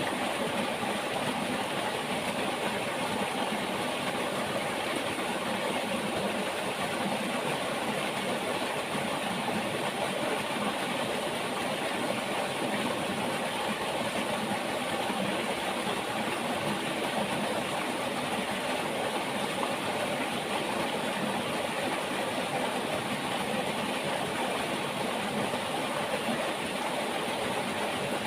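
River water flowing: a steady, even rush.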